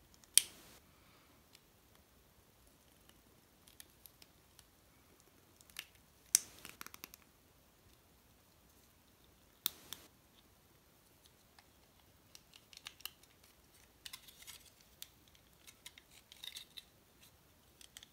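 Small plastic model-kit parts clicking as they are handled and pressed together by hand: three sharp clicks spread through, then a run of light ticks and faint rustling near the end.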